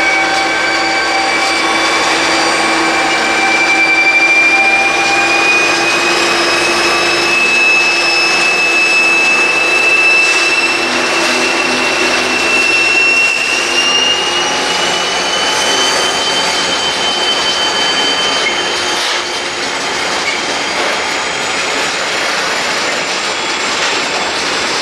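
DB class 232 'Ludmilla' diesel locomotive working hard under load as it pulls a heavy salt train of hopper wagons away. A high turbocharger whine rises slowly in pitch over the engine and the rolling wagons, then fades in the last few seconds.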